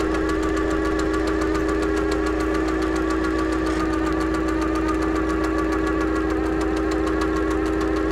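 Machine-like sound effect for an animated clockwork intro: a steady droning hum with rapid, evenly spaced mechanical ticking, unchanging throughout.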